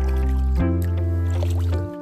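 Background music: sustained chords over a heavy bass, changing every half second or so, that drop away briefly near the end.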